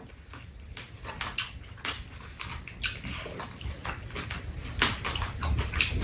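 Eating sounds: metal spoons clicking and scraping against bowls, with wet chewing and slurping of fried rice and soup.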